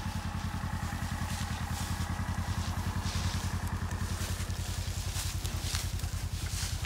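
Engine of the vehicle towing a bale unroller idling steadily, with a fast, even low throb. Short crackles of hay being trampled and pulled sound over it.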